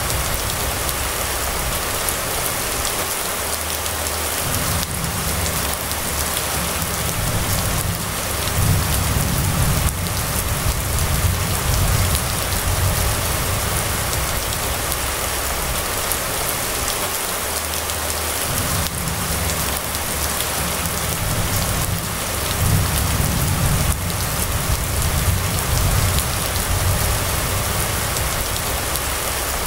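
Steady rain falling on wet pavement, with low rumbles swelling and fading several times.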